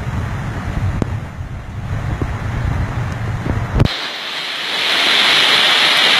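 Rushing flash-flood water with wind buffeting the microphone. About four seconds in, the sound changes abruptly to a louder, steady hiss.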